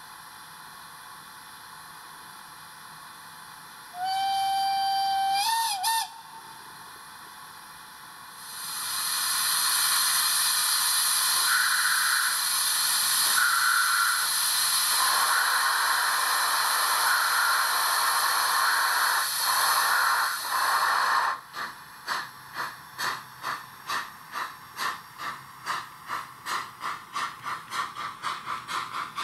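ESU LokSound V5 micro sound decoder in a ROCO model of the DR class 93 steam tank locomotive, playing steam sounds through its small speaker. A whistle sounds for about two seconds about four seconds in, rising slightly in pitch with a warble at the end. Then comes a long hiss of steam, and then exhaust chuffs that start slowly and quicken as the locomotive pulls away.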